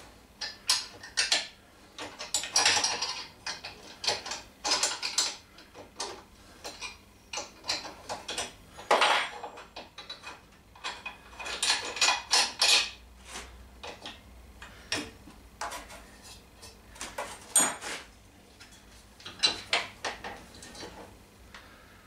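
Hand tools and metal parts clinking and scraping against each other on a workbench, in irregular bursts of sharp clinks with short pauses between.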